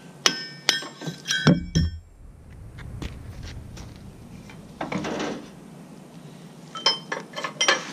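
A hand hammer striking steel, a handful of sharp blows with a ringing metallic clink in the first two seconds. A brief rustle follows about five seconds in, then a quick run of lighter metallic clinks near the end.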